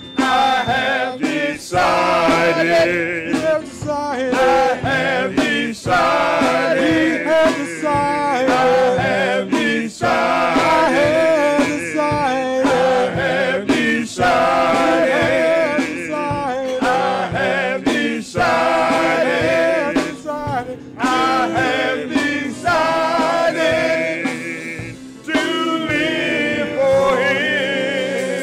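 A male gospel vocal group singing with instrumental backing, the sound trailing off near the end.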